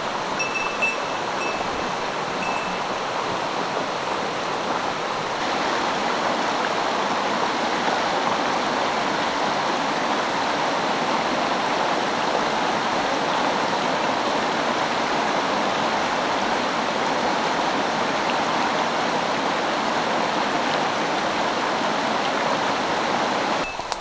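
Shallow mountain stream running over a rocky riffle: a steady, even rush of water that grows a little louder about five seconds in. A few short high chirps near the start, and a quick clatter of sharp clicks at the very end.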